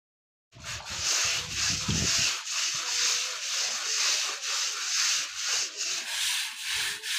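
Hand scrub brushes scrubbing the wet woven cord of a charpai: a steady rasping of bristles on cord that starts about half a second in, in repeated strokes about twice a second.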